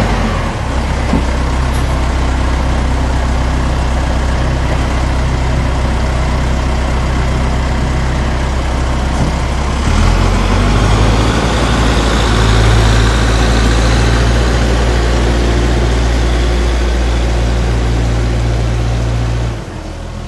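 Tractor engine running steadily to work a tipping trailer unloading barley in bulk, under the hiss of the grain pouring out. The engine note steps up about halfway through, as if revved to drive the tipping hydraulics.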